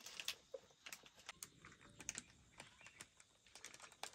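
Faint, scattered crinkling and clicking of a plastic bag and dry twigs being handled as kindling for a wood fire.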